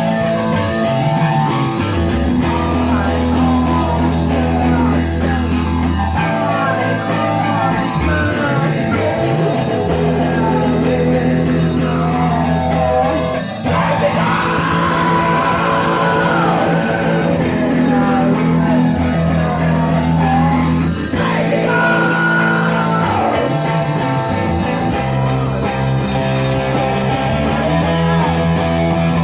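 A grunge band playing live and loud: distorted electric guitar and bass, with a singer's voice over them.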